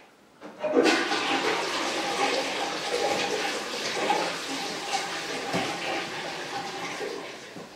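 Rushing water starting suddenly about a second in, with a faint steady whine in it, running for several seconds and then tailing off.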